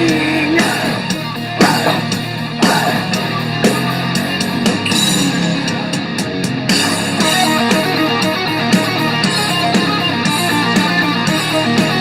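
Heavy metal instrumental passage: distorted electric guitars over a drum kit, with a fast repeating guitar figure from about seven seconds in.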